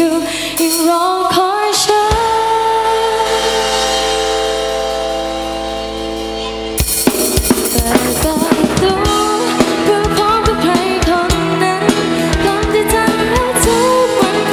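Live pop song: a female singer with a band. The first part is a long held chord that fades a little, then about seven seconds in the drum kit comes in with a steady beat.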